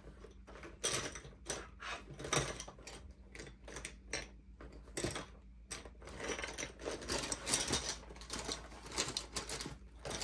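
Light clicks, taps and rustling of art supplies and a sleeve being handled on a desk, with a denser stretch of scratchy rustling about two-thirds of the way through.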